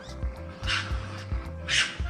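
Wolf sound effect: two short calls about a second apart, over background music with a steady beat.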